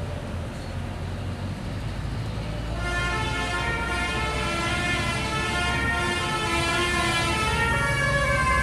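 Bus engine running, and about three seconds in the bus's telolet multi-tone air horn starts playing a tune of shifting tones that grows louder.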